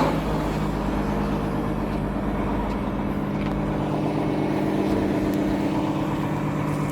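A heavy diesel engine idling steadily at an even pitch.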